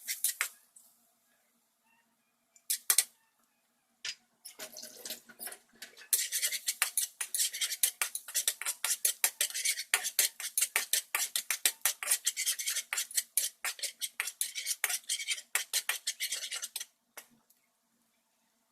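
A metal utensil stirring rapidly in a bowl, clinking against it several times a second for about twelve seconds. A few separate knocks come before it.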